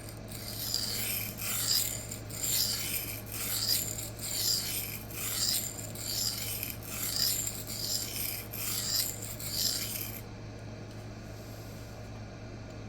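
A K110 steel knife blade rasping back and forth across a coarse 400-grit CBN sharpening plate in repeated strokes, roughly two a second, cutting fast and raising a burr. The strokes stop about ten seconds in.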